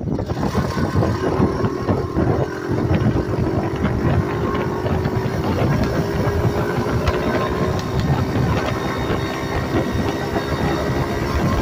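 Small single-cylinder four-stroke engine of a motorized bicycle, a Honda 70 clone, running under way. Its pitch climbs slowly for most of the stretch as the bike gathers speed, then holds steady.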